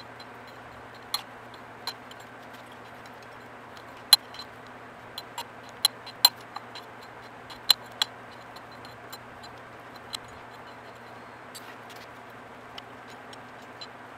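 Sharp metallic clinks and taps of hand tools and bolts on the engine during teardown, a dozen or so at irregular intervals, the loudest between about four and eight seconds in. A steady low hum runs underneath.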